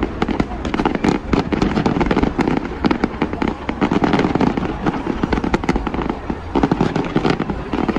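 Fireworks display: a dense, unbroken string of aerial shell bursts and crackling, many bangs a second overlapping one another.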